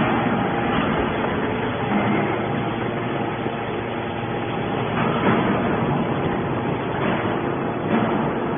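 Hydraulic scrap metal baler running: a steady machine noise with a few short, louder crunching knocks, about five, seven and eight seconds in.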